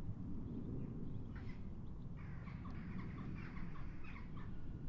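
A bird calling: a brief call, then a rapid run of short chattering notes lasting about two seconds, over a steady low rumble.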